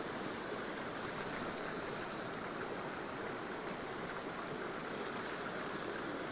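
Mountain stream rushing steadily over rocks and small rapids.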